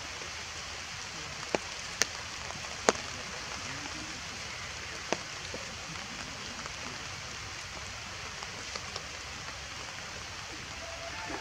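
Steady rain falling on forest foliage, an even hiss, with four sharp ticks in the first half.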